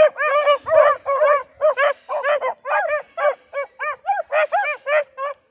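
Rabbit dogs giving tongue while running a rabbit's trail: a fast string of short, loud yelping barks, each rising and falling in pitch, three or four a second.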